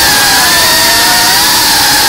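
Motors and propellers of a GEPRC Cinelog35 FPV cinewhoop drone whining at fairly steady throttle, the pitch wavering slightly.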